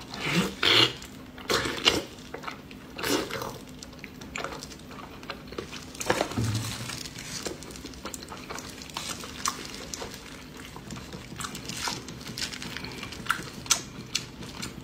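Eating sounds: a person biting and chewing soft, fatty braised pork, with wet mouth smacks and many small clicks. The louder bursts come in the first two seconds and again about six seconds in.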